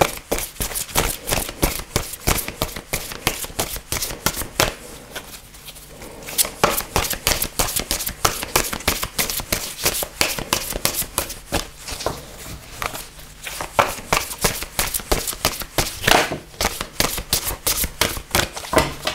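A deck of oracle cards being shuffled by hand: a continuous run of quick, dense papery flicks and clicks, easing off briefly a couple of times.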